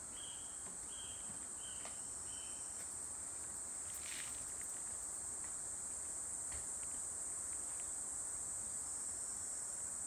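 Steady high-pitched insect chorus from the surrounding rainforest. Over it, about five short, evenly spaced notes sound in the first two seconds.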